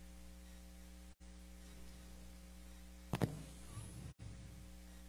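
Steady electrical mains hum from the sound system, with a short noise about three seconds in. The sound cuts out completely for an instant twice.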